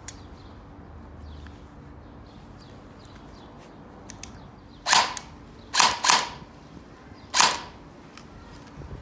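Parts of an airsoft M4 being pulled apart during disassembly: four short, sharp clacks in the second half, two of them close together, as the upper assembly is slid forward to free the inner barrel and hop-up unit.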